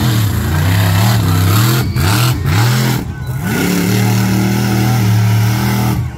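Monster truck engine revving hard as the truck drives through loose dirt. The engine note dips and climbs several times in the first three seconds, then is held high and steady before dropping near the end.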